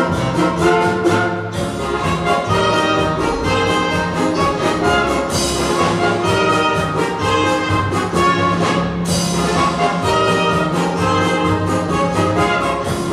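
Orchestra with brass playing a dance tune with a steady beat, with two bright crashes about a third and two thirds of the way through.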